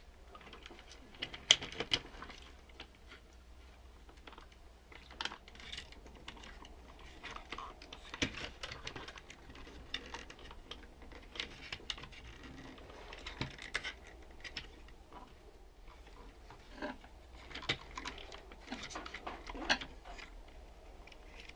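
Irregular light clicks, taps and rustles of fingers handling wires and a small circuit board in a plastic toy tank chassis, the sharpest click about a second and a half in.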